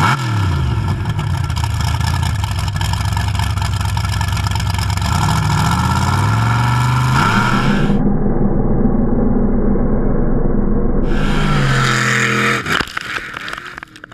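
Supercharged big-block V8 of a mega truck revving hard, its pitch rising and falling, as the big tires spin in the dirt. About twelve and a half seconds in, the engine sound falls away quickly, with dirt clattering down as it fades.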